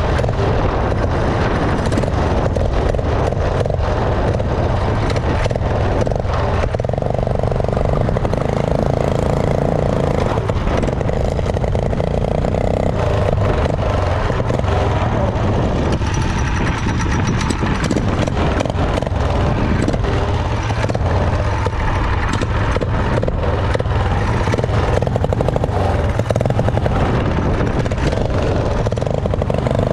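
The 212 cc gas engine of a motorized bicycle running steadily while under way, mixed with wind rushing over the microphone.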